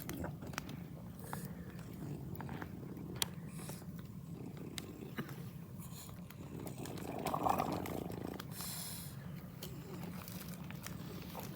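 Campfire burning: scattered sharp crackles and pops over a steady low rumble.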